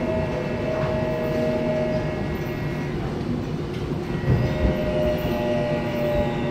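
Inside a Seoul Line 1 subway car running on the track: a steady rumble of wheels and car body under the hum of the traction motors. The motor tone fades out partway through and comes back about five seconds in. A few wheel knocks come about four seconds in.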